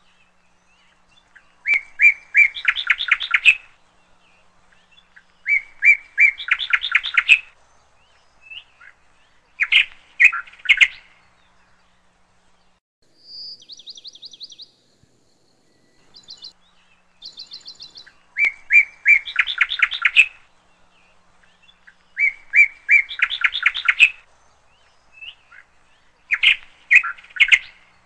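Birdsong: a bird repeats a short song about every four seconds, a few clear notes followed by a quick trill. Between the songs, around the middle, a second, higher and thinner trill is heard twice.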